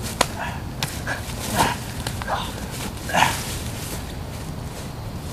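Scuffling and a few sharp clicks from two people wrestling in dry leaves, with about five short yelps spread across the first few seconds.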